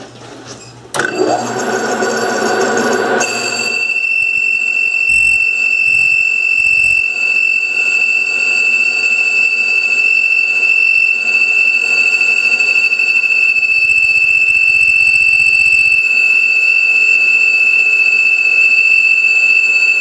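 Metal lathe facing a cast indexing wheel under automatic feed. The cutting starts about a second in, and about two seconds later the tool begins to squeal, a steady high-pitched whine with overtones that holds.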